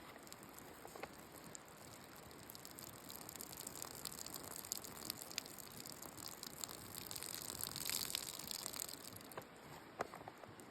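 Faint steady rushing hiss of water, swelling about eight seconds in and easing off near the end.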